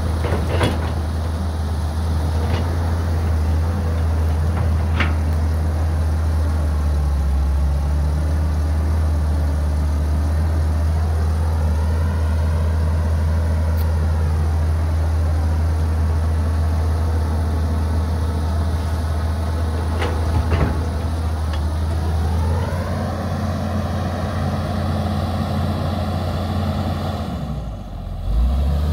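Caterpillar 320CL hydraulic excavator's diesel engine running steadily as the machine digs and loads. A whine rises and falls once, then climbs again and holds for a few seconds as the boom and arm move, with a few sharp knocks along the way.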